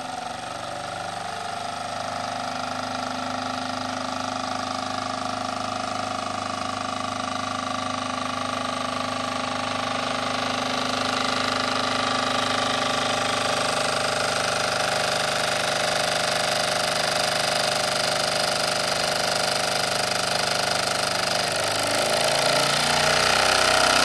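Wilesco D24 model steam engine running and driving its dynamo: a steady mechanical running sound with several held tones that grows gradually louder.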